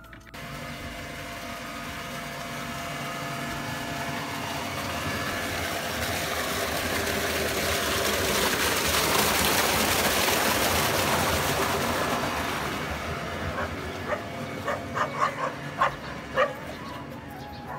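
Water gushing from a tubewell outlet into a brick irrigation channel: a steady rush that swells to its loudest around the middle and fades again. Near the end comes a handful of short, sharp sounds.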